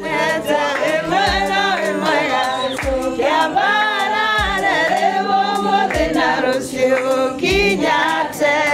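A group of people singing a song together.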